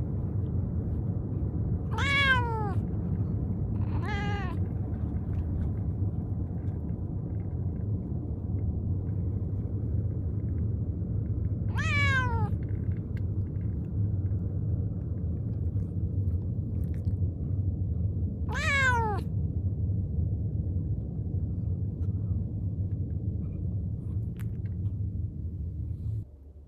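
Munchkin cat meowing four times, each meow falling in pitch: two close together near the start, then two more spaced several seconds apart. Under the meows runs a steady low rumble that cuts off just before the end.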